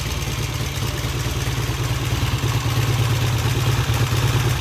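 Vintage British motorcycle engine idling steadily with an even, regular beat, a little louder toward the end. It is idling okay and running smoothly.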